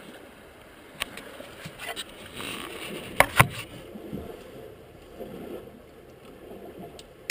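A few sharp clicks and knocks of hands handling an AR.Drone and plugging in its battery connector. The two loudest come close together a little after three seconds in, over a low steady background noise.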